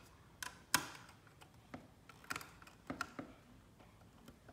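Light, irregular clicks and taps of a small screwdriver and the router's circuit board being handled while screws are taken out, about eight sharp ticks in all.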